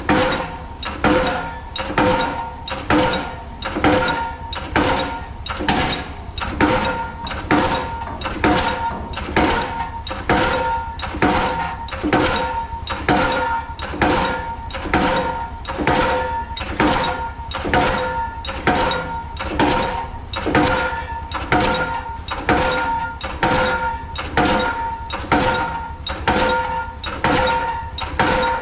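Pile driver hammering a pile in a steady rhythm, about one heavy blow a second, each blow leaving a metallic ring, over the low hum of the rig's engine.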